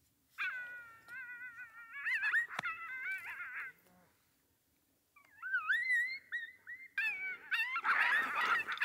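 Several coyotes howling and yipping together, their voices wavering and overlapping, in two bouts with a quiet break of about a second and a half in the middle; the second bout builds to the loudest part near the end.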